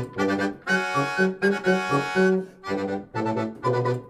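Background music: an instrumental tune played in short chords with a steady bouncing rhythm.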